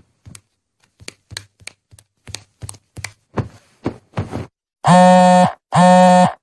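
Mobile phone buzzing twice with a text-message alert, two steady half-second buzzes near the end. Before it, a string of soft, irregular ticks, about three a second.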